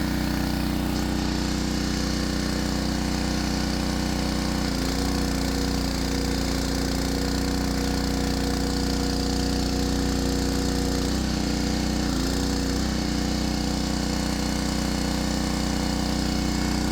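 Small single-cylinder Predator 212 (6.5 hp) engine running steadily. A higher steady tone joins about five seconds in and drops away around eleven seconds.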